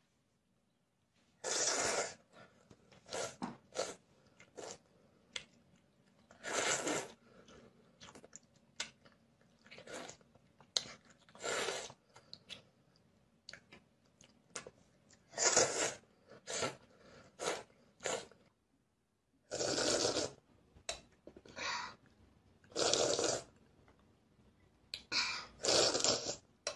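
A young child slurping noodles and soup from a bowl: a long run of irregularly spaced slurps, each lasting up to about a second, with softer mouth smacks and chewing between them.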